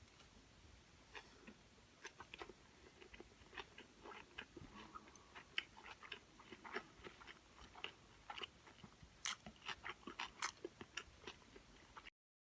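A person chewing food close to the microphone: faint, irregular wet clicks and crunches that come thicker toward the end, then cut off suddenly.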